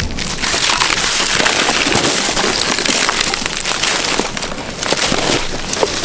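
Footsteps crunching through dry fallen leaves and snapping small twigs, a continuous close crackle.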